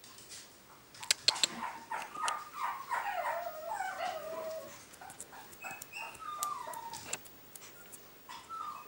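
Small puppy whining and yipping in a series of high, falling cries, with a few sharp clicks early on.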